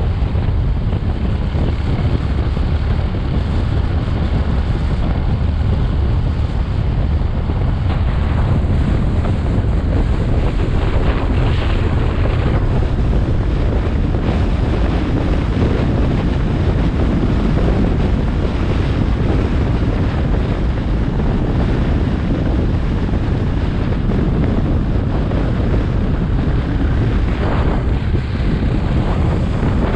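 Wind rushing over the microphone of a camera riding on a moving motorcycle: a loud, steady buffeting that covers everything else.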